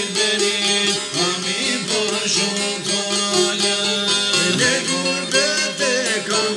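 Albanian folk song: a man singing an ornamented, wavering melody over fast-plucked çifteli and a larger long-necked lute.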